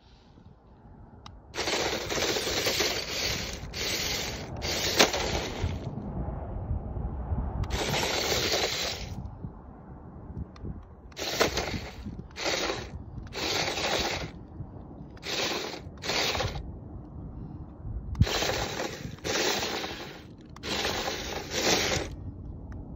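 A toy remote-control Toyota Land Cruiser drives over dry, cracked dirt, its electric motor and gears running in repeated bursts of throttle. There are about ten bursts, from half a second to a few seconds long, with its tyres scraping and crunching on the ground.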